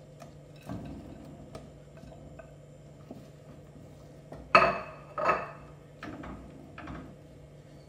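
Fried chicken pieces tipped from a plate into sauce in a stainless steel kadai and stirred with a wooden spatula: scattered clinks and knocks of the spatula and plate on the pan, two louder knocks about four and a half and five seconds in.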